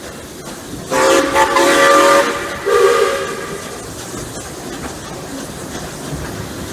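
Steam locomotive whistle sounded twice, a long blast about a second in and a shorter one soon after, several notes together, over the steady running of the train.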